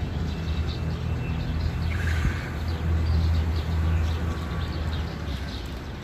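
Low, steady engine rumble of a motor vehicle, loudest around three to four seconds in, with birds chirping high and quick over it and one brief call about two seconds in.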